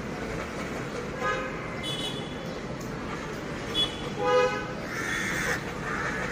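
Steady road traffic noise with several short vehicle horn honks over the first two-thirds.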